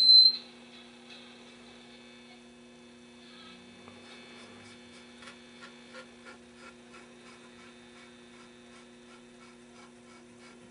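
Philco 39-30 tube radio's loudspeaker giving out a steady low hum on first power-up after recapping. It opens with a brief loud high-pitched whistle of feedback, and faint crackles come through midway as the dial is tuned.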